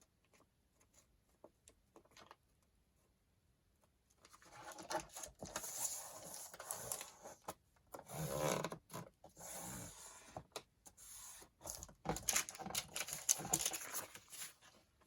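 Sheets of paper being handled and folded: rustling and rubbing strokes as the sheets are moved and a fold is creased, starting about four seconds in after a quiet spell.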